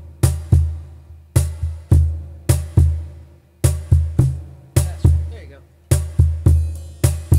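Looped drum beat: deep bass-drum thumps with sharper hits on top, repeating in a steady pattern of quick clusters of three or four strikes.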